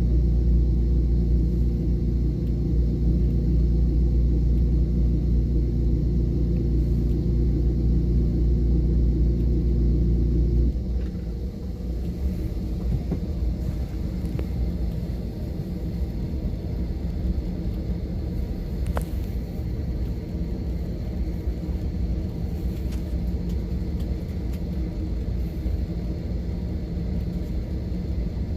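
Low, steady engine rumble with a few held tones that drops suddenly about ten seconds in, leaving a quieter, rougher rumble.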